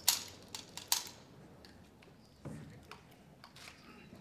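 A few sharp clicks and light knocks from a rapid-fire sport pistol being handled on the shooting bench: four quick clicks in the first second, then a soft knock about two and a half seconds in and some faint ticks.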